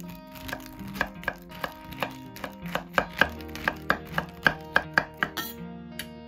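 Small cleaver chopping brown beech (shimeji) mushrooms on a wooden cutting board: quick knocks about three a second that stop shortly before the end.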